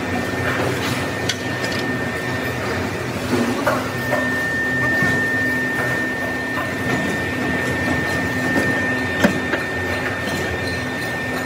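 Factory machinery running steadily with a high, even whine and a low hum, scattered light metal clicks, and one sharp knock about nine seconds in.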